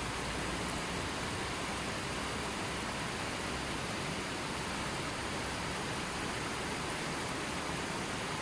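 Steady, even rushing of water, a constant hiss with no changes.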